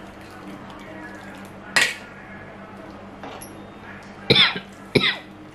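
Metal slotted ladle clanking against metal cooking pots three times, once about two seconds in and twice near the end, each clank ringing briefly. The ladle is scooping part-cooked rice out of its boiling water into a steel bowl.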